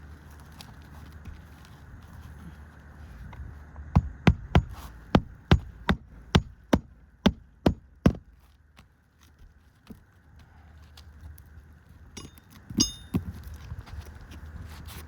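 Hammer striking roofing nails into asphalt shingles: a run of about eleven sharp blows over four seconds, then two more blows near the end.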